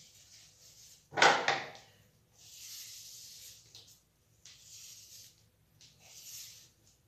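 A loud knock about a second in, then three soft hissing strokes, each about a second long, as a comb and hands are drawn through long hair wet with a milk-and-egg mix.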